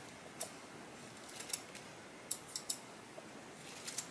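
Curved groomer shears snipping through tissue paper, about eight short, crisp snips in small clusters. These are test cuts to check whether the freshly bent blades now cut cleanly.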